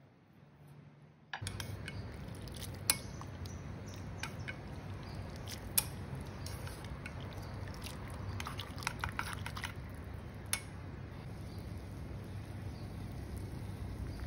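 Udon noodles boiling in a stainless-steel pot of water on a gas burner: a steady bubbling noise that starts suddenly about a second and a half in. Chopsticks stirring the noodles click against the pot a few times.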